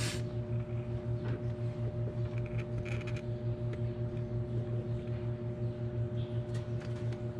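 A steady low hum that pulses about four times a second, with faint clicks and rustles as the inspection-camera cable is handled.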